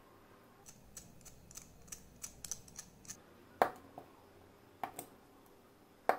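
Small tools and plastic model-kit parts being handled: an irregular run of light, sharp ticks for a couple of seconds, then several louder taps.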